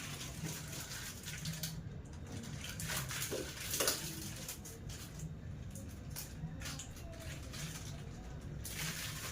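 Rustling and handling noises: a steady hiss with scattered crackles and light knocks, loudest about four seconds in.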